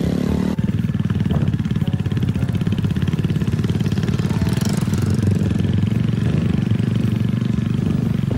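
Motorcycle engine running steadily, its exhaust beating in a fast even rhythm.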